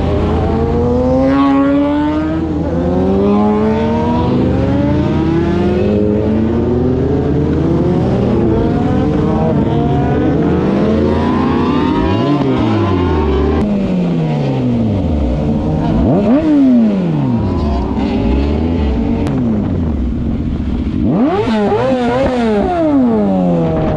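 Sport motorcycle engines revving hard, their pitch climbing and dropping again and again, with quick rev blips about halfway through and near the end.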